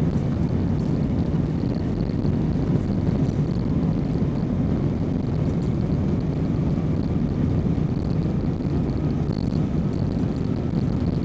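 Jet airliner running steadily: an even, low rumble with a faint high whine over it.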